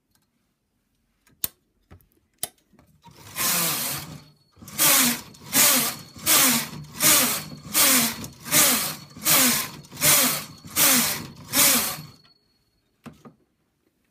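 Brother knitting machine carriage pushed back and forth across the needle bed, knitting rows of waste yarn. One longer pass about three seconds in is followed by ten quick passes about three-quarters of a second apart, each a sliding rattle of the carriage over the needles.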